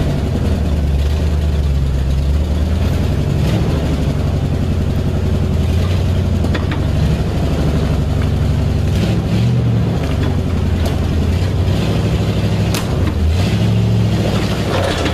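1959 Chevrolet Viking tow truck's engine running under load as the truck pulls forward, dragging a steel shipping container on logs across gravel. Its low drone wavers in pitch, with scattered sharp knocks over it.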